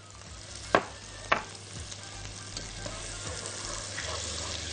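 Butter melting and sizzling in a hot pot as a silicone whisk stirs it, the first step of a roux. Two sharp knocks about a second in, then a steady sizzle.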